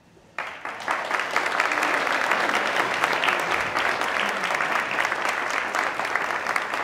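Audience clapping, starting abruptly about half a second in and holding steady.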